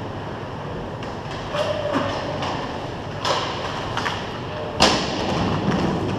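Hockey game play: a steady rolling rumble of skates on the rink surface, broken by sharp clacks of sticks and puck, the loudest about five seconds in.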